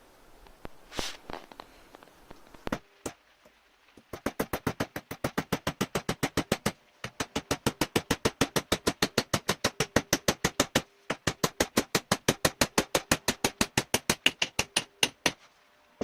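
A long run of rapid, evenly spaced hammer blows, about four or five a second, with two short breaks; a few scattered knocks come before it.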